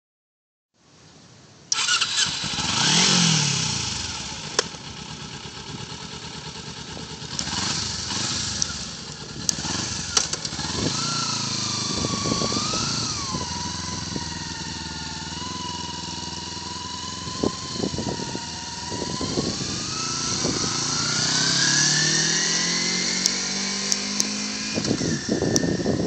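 Stock-exhaust 2009 Kawasaki Ninja 250R's 250 cc inline-twin engine catches about two seconds in and is revved once. It then runs on as the bike rides away and comes back, its note rising and falling with the throttle and climbing steadily near the end.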